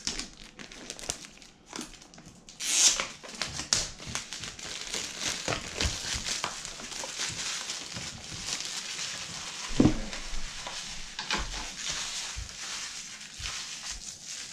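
Plastic packaging wrap being crinkled and pulled off by hand, with continuous crackling, a louder rip about three seconds in and a sharp knock near ten seconds.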